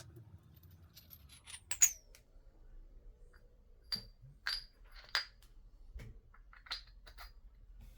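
Small steel parts clicking and clinking as a greased DCF902 anvil is fitted into a DeWalt DCF850 impact driver. A sharp click about two seconds in is the loudest, followed by a string of lighter metallic clinks with a short ring.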